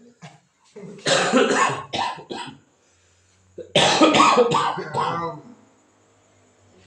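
A person coughing hard in two fits of several coughs each, the first about a second in and the second just before the middle: the chesty cough of a patient who is ill with a cough.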